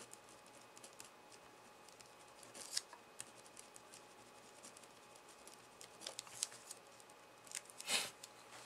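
Pen writing on paper: faint, short scratchy strokes as a label is written, with a louder brief rustle of the sheet being handled near the end.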